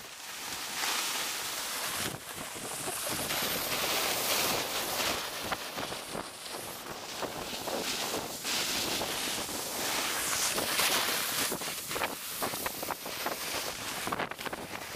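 Wind rushing over the microphone of a camera moving fast downhill on skis, mixed with skis hissing and scraping over packed snow; the rush swells and fades with the turns.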